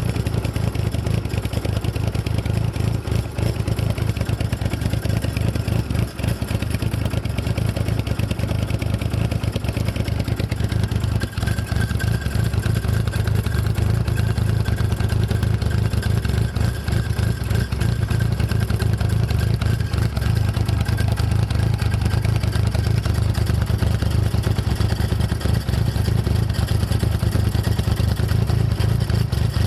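Toyota AE85 Sprinter Trueno's engine running steadily through a rusted Trust muffler with holes in it, a rattling clatter riding on the exhaust note.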